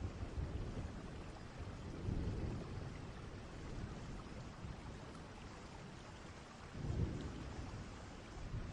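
Distant thunderstorm: steady rain with low rumbles of far-off thunder swelling about two seconds in and again near the end.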